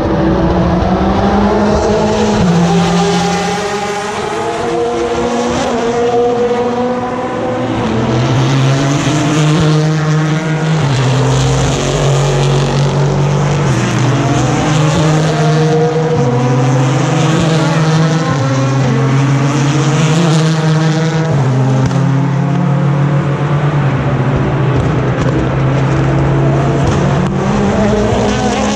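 Endurance race cars' engines running through a slow corner. Several engines overlap, their pitch stepping down and up with gear changes as the cars brake and accelerate away.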